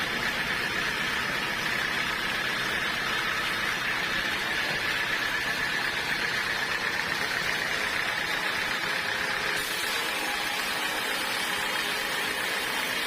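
Sawmill machinery running steadily, with a constant whine over an even mechanical noise.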